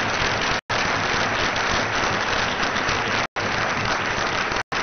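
Large audience applauding steadily, a dense even patter of many hands clapping, broken by three split-second dropouts in the recording.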